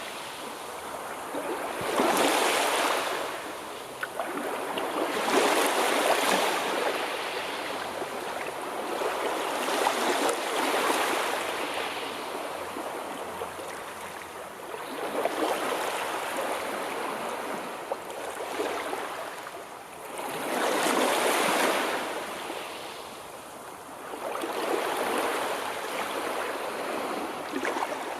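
Sea waves washing in, one surge every three to five seconds, each swelling and then ebbing away.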